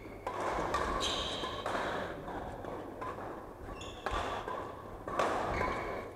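Badminton rally in a large hall: sharp racket strikes on the shuttlecock and short high squeaks of shoes on the wooden court floor, with the hall echoing.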